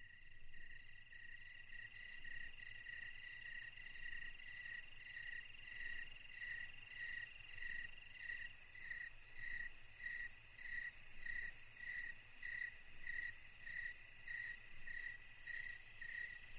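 Faint night chorus: a high chirp repeating in an even rhythm, about three chirps every two seconds, over a steady high trill that stops about halfway through.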